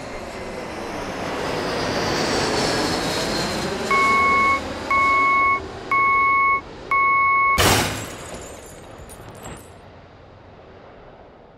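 Sound effects of a motorized passenger-stairs vehicle driving up: a vehicle engine swelling over the first few seconds, then four loud warning beeps about a second apart, each just under a second long. A sudden heavy thud follows about two-thirds of the way through, then rings out and fades.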